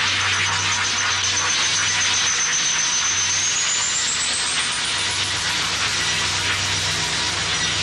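Electronic sound effect: a steady rushing hiss over a low pulsing hum, with a high whistling tone that holds and then glides upward from about three seconds in.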